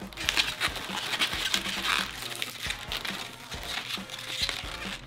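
Inflated latex twisting balloons rubbing and squeaking against each other and the fingers as the scorpion's balloon legs are pushed and adjusted. The sound is a busy, uneven run of short crinkly rubs.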